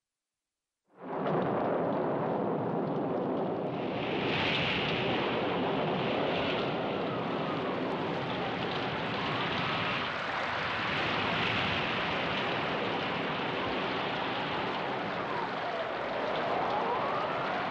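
Steady rushing sound of sea surf and waves, starting abruptly about a second in, with faint wavering whistle-like glides rising and falling over it near the middle and again near the end.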